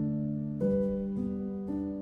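Instrumental background music: gentle melody of struck or plucked notes, a new note about every half second.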